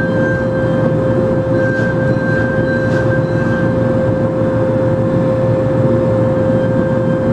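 CNC milling machine cutting a metal part under flood coolant: the spindle and cutter make a steady, unbroken tone with a fainter higher tone above it, over a dense rushing noise of cutting and coolant spray.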